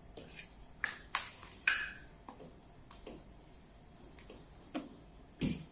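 Sharp, irregular slaps and taps of raw bread dough being slapped down on a steel bench scale and patted by hand while it is divided and weighed, one or two with a brief metallic ring.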